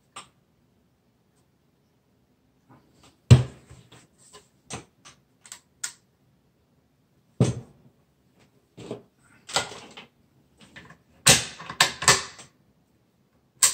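A Browning AB3 bolt-action rifle being handled: scattered clicks and knocks, with a sharp knock about three seconds in and another about halfway, then a quick run of clicks near the end.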